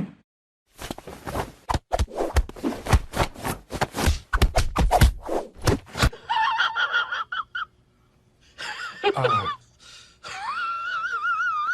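A rapid run of knocks and thumps, then, after a cut about six seconds in, a cat's drawn-out, wavering meows or yowls, the last one long and quavering.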